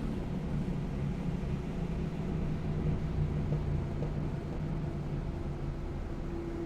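A steady low engine drone with a humming tone.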